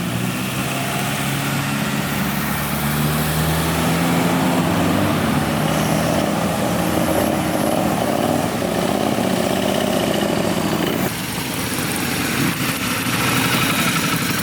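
Car engines running as cars pull up at low speed; the engine note rises over the first few seconds and the level drops suddenly about eleven seconds in.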